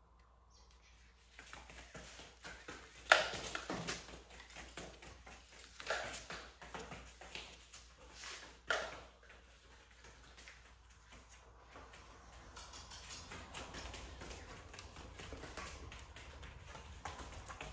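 A dog's paws and claws tapping on foam floor mats as it moves about searching, with a few louder knocks about 3, 6 and 9 seconds in and a quick run of light taps in the second half.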